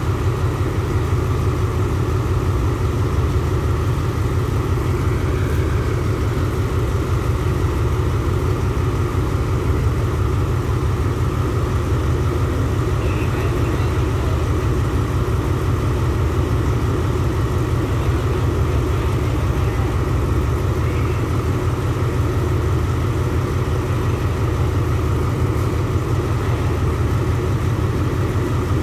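Diesel-electric locomotive idling steadily at a standstill, with a deep, even engine hum and no change in pitch.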